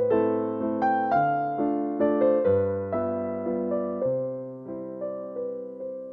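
Background music: a slow electric piano tune, notes struck about twice a second and each fading away.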